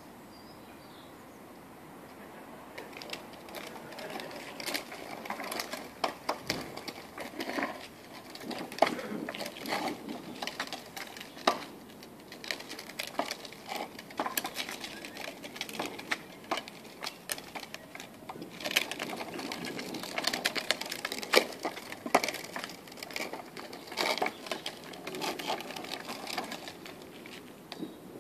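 Small plastic tricycle rattling and clicking as its hard plastic wheels roll over block paving, in uneven clusters of sharp clicks that come and go as it moves.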